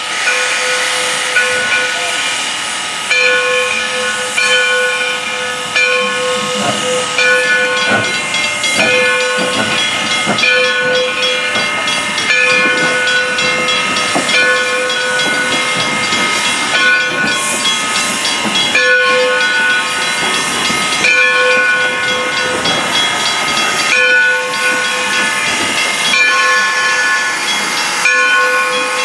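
Black River and Western steam locomotive No. 60 hissing steam continuously, with several whistling tones in it that cut in and out every second or so.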